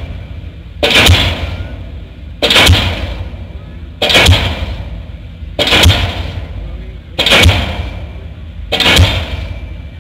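Diesel pile hammer pounding a precast concrete pile, its heavy booming blows coming steadily about every second and a half, six in all, each ringing briefly before the next. The thick smoke with each blow is, to the uploader, the sign that the pile has reached hard ground.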